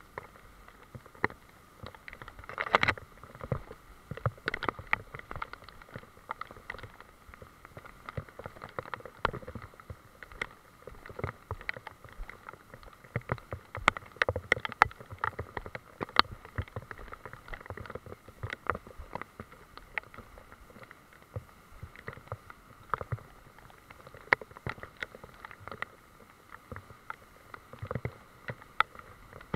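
Rain dripping and pattering on leaves and on the camera: a dense, irregular scatter of sharp ticks over a soft steady hiss, with rubbing and knocks of handling as the camera is carried through wet undergrowth.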